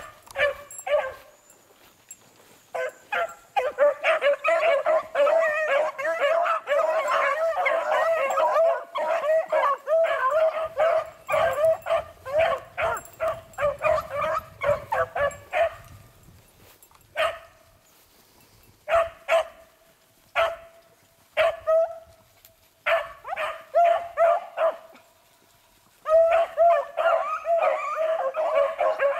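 A pack of beagles baying together in full cry, as hounds do when running a rabbit's scent. About two seconds in the voices drop out briefly. Past the middle the chorus thins to scattered single bays for several seconds, then the full pack takes up the cry again near the end.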